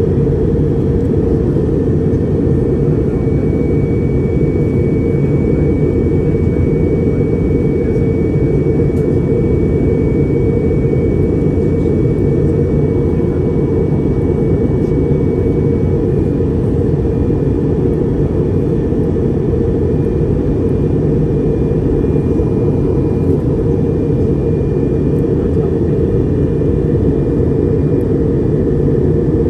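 Airplane cabin noise in flight: a steady low roar, with a faint high whine above it.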